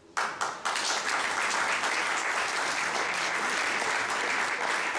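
Audience applauding. The clapping starts suddenly just after the start and holds steady.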